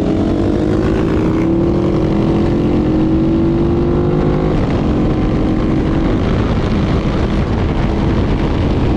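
KTM 990 motorcycle's V-twin engine pulling under acceleration, its pitch climbing steadily for about four and a half seconds, then dropping away and fading under steady wind noise.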